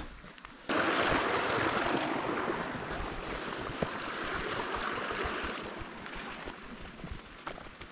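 Rushing stream water that sets in abruptly a moment in, then fades steadily over the next few seconds. Faint footsteps click through the quieter end.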